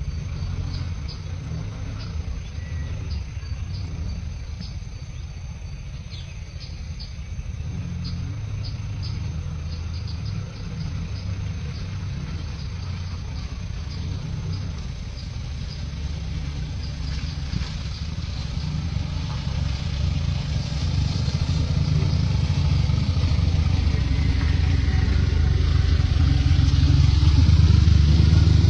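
A steady low rumble that grows louder toward the end, with insects chirping in a fast regular rhythm through the first half.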